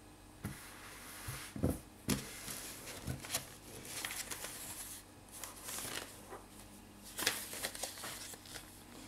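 A plastic blister pack of pens on a cardboard backing card being picked up and handled: a few sharp knocks early on as it is lifted from the wooden table, then irregular crinkling and crackling of the plastic, with another burst near the end.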